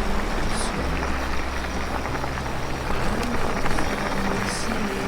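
Background music with held bass notes over a steady rushing noise of wind and trail rattle from a mountain bike ride.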